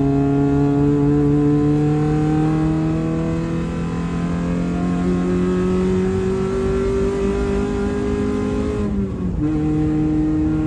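1994 Honda Civic with a straight-piped exhaust, its engine pulling steadily and slowly rising in pitch as the car accelerates in gear. About nine seconds in there is a short break and the pitch drops at a manual upshift, then the engine pulls on in the next gear.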